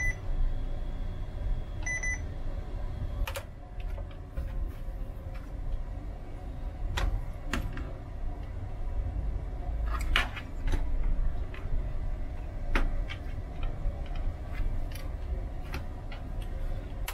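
Two short high beeps from an IBM ThinkPad 755C's internal speaker, one right at the start and one about two seconds in, while its BIOS date and time are being set. Then scattered clicks and knocks as hands handle the laptop's case and keyboard.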